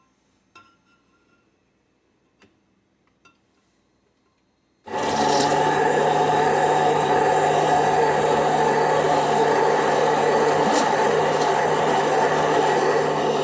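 A few faint clicks and taps, then about five seconds in an immersion blender switches on and runs steadily, whipping a soy-milk-and-oil vegan mayonnaise to thicken it.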